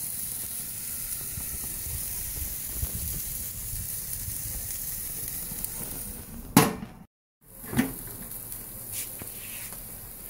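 Hanger steak sizzling on the hot grate of a gas barbecue grill, a steady hiss. About six and a half seconds in there is a sharp knock; after a brief dropout the sizzling goes on more quietly, with a few small clicks.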